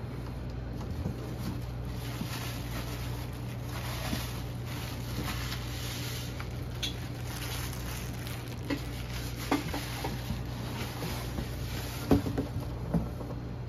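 Plastic air-pillow packing and cardboard rustling as a canner is unpacked from its box, with scattered light knocks and a sharper knock near the end as the aluminium canner pot is lifted out. A steady low hum runs underneath.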